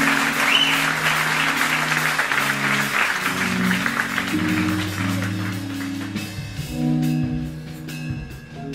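Jazz fusion band playing live: electric bass and keyboards holding low chords and notes. Audience applause runs over the music and fades out about six seconds in.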